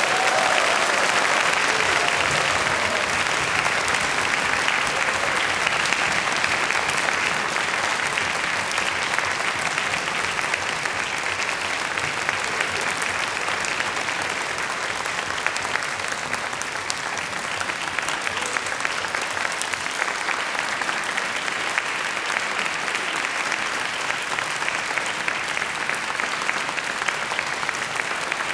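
Concert audience applauding with dense, sustained clapping, loudest at the start and easing slightly.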